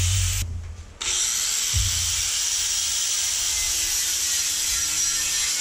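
Corded angle grinder grinding on an aluminum radiator bracket, with a steady high whine. It cuts out briefly about half a second in, spins back up about a second in, and then grinds steadily.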